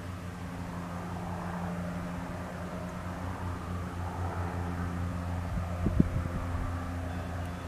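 Piston aircraft engine running steadily at low power, a deep even hum. A few dull thumps come about six seconds in.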